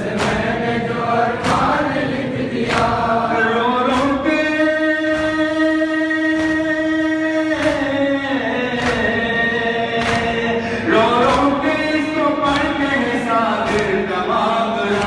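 A group of men chanting a noha, a Muharram lament, with long drawn-out notes in the middle. Sharp chest-beating (matam) slaps keep time, about one every second and a quarter.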